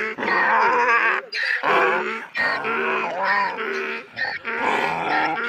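A donkey braying: a run of repeated hee-haw calls with short breaks between them.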